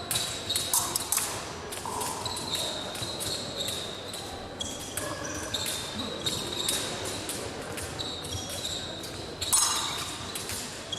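Épée fencing bout: quick footwork on the piste and clicks of steel épée blades meeting, with many sharp taps and repeated brief high squeaks.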